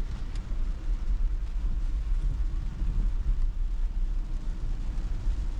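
Steady low rumble of tyre and road noise inside a Tesla's cabin as the electric car drives on rain-wet roads, with no engine sound.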